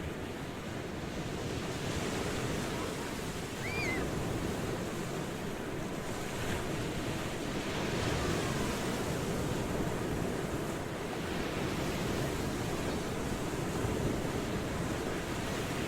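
Ocean surf washing steadily, an even rushing noise that swells gently now and then. A brief high chirp cuts through about four seconds in.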